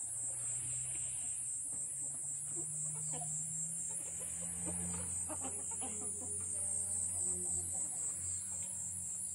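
Chickens clucking with short, scattered calls over a steady high-pitched insect chorus, with a low steady hum underneath.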